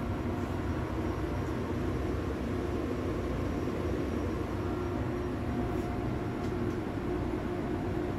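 Steady drone of running machinery in a ship's engine spaces, unchanging throughout.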